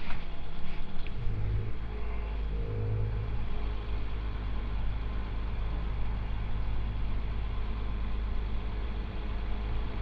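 Refuelling a Triumph Scrambler 900: petrol running from a pump nozzle into the motorcycle's tank over a steady low hum, with a couple of clicks in the first second and two short swells in the hum soon after.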